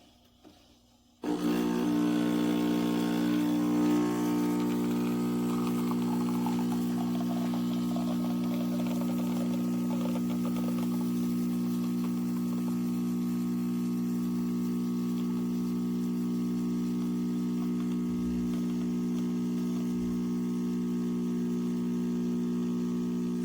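Neretva 15-bar espresso machine's pump switching on suddenly about a second in and running with a steady buzzing hum, with a hiss of water that fades over the first ten seconds.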